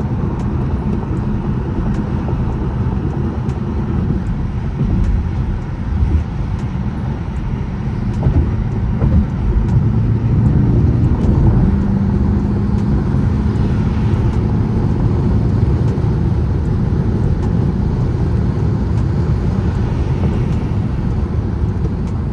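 BMW M6 engine and road noise heard from inside the cabin while driving in traffic, a steady low rumble that grows a little louder about ten seconds in.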